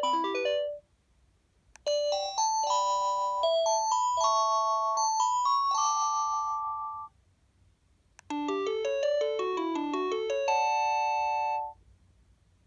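Panasonic KX-TGH720 cordless phone playing its built-in ringtones one after another: a short repeating chime melody ends under a second in, a slower bell-like tune plays from about two to seven seconds, and a quicker tune of rising and falling arpeggios follows from about eight seconds. A short click comes just before each of the later two tunes.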